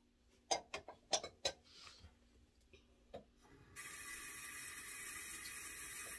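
A few sharp clicks and knocks, then a steady hiss that starts suddenly near the end, runs for about two and a half seconds and cuts off abruptly.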